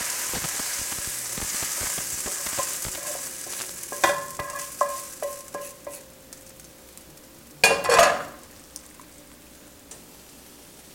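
Caramelized onions sizzling as they are scraped from a hot frying pan into a pot of broth, the hiss fading over the first few seconds. Then several ringing metal taps of the utensil against the pan, and one louder metallic clang near the end.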